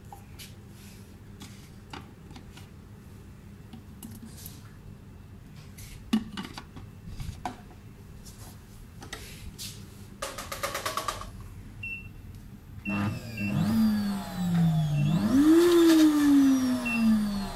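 Ashoo SH826D silencer blender: clicks and knocks as the jar is handled and set in place, a few short beeps from the touch panel, then the motor starts about 13 seconds in, heard through the closed sound enclosure. Its pitch sags as the blades bite into the fruit chunks, then jumps up sharply and slides back down as it blends.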